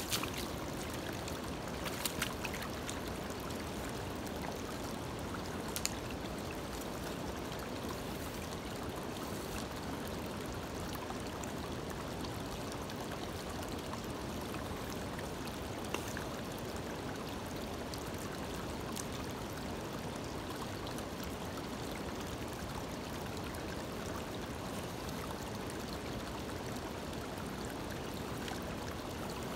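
Shallow stream water running steadily over stones and through a small sluice box, an even rushing wash. A few short sharp knocks stand out, about two and six seconds in and once more in the middle.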